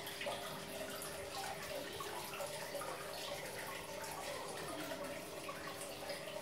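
Aquarium water trickling and dripping steadily, with a faint steady hum underneath.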